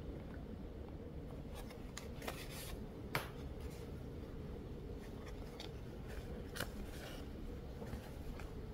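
Hand embroidery: a needle and embroidery floss being drawn through cotton cloth, giving faint rustles and a few scattered ticks over a steady low hum.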